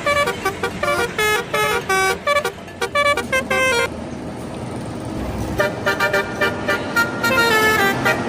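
Bus telolet horn, a multi-tone air horn, playing quick runs of short notes that jump up and down in pitch. It breaks off for about a second and a half in the middle, where only engine and road noise is heard, then starts up again.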